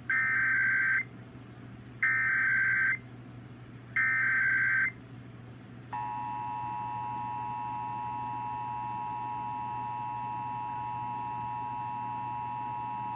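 Emergency Alert System tones: three one-second bursts of the SAME digital header, about a second apart, then the steady two-tone EAS attention signal (853 and 960 Hz together) beginning about six seconds in.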